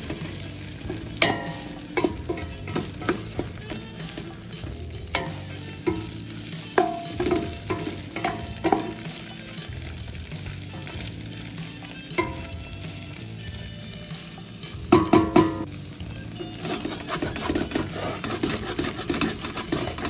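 Ground beef frying and sizzling in a steel pan while a wooden spoon stirs and scrapes the browning meat off the pan bottom, with scattered scraping knocks, loudest in a cluster about fifteen seconds in.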